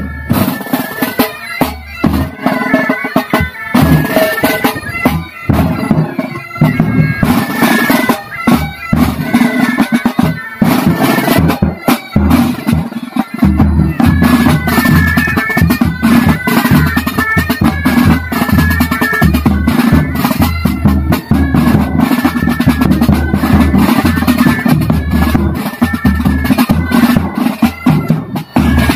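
Military pipe band playing: Highland bagpipes sounding a melody over their steady drone, with side drums and a bass drum beating the rhythm. The drum strokes stand out most in the first half.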